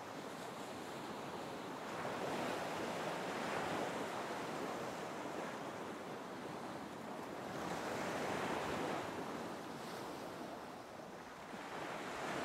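Ocean waves washing: a steady rush of surf that swells and eases off every few seconds.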